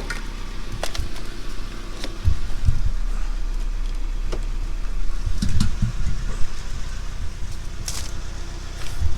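Handling noises at a car: scattered sharp clicks and several dull thumps over a steady low rumble, as the car's door is unlocked and opened and floor mats are handled.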